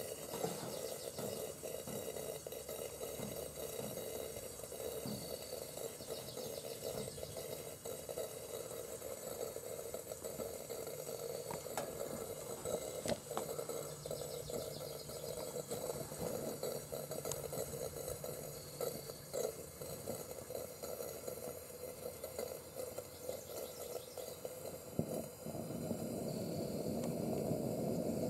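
Coleman gas camping lantern hissing steadily. It grows louder near the end as the mantle lights and glows.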